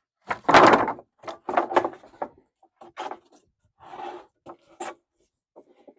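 Cut wooden lengths being handled and set down, a series of wooden knocks and thuds, the loudest about half a second in and about five more spread through the rest.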